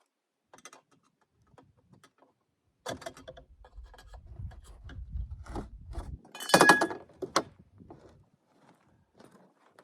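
Clicks and light rattles of hand tools and small metal chainsaw parts being handled while the stock exhaust is taken off, with a louder, briefly ringing metal clank about six and a half seconds in.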